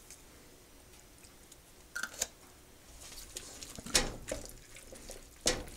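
Wooden spoon stirring and scraping a thick mix of browned ground meat, kidney beans and tomato paste in a stainless steel pot, with squelching and a few sharp knocks of the spoon against the pot. The loudest knock comes about four seconds in and another near the end, after a quiet first two seconds.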